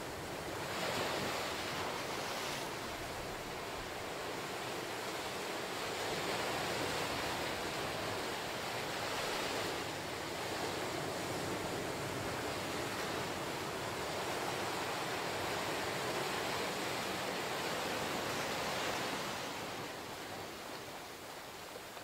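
Ocean surf washing into a small sandy cove and around lava rocks: a steady rush of foaming water that swells about a second in and eases off near the end.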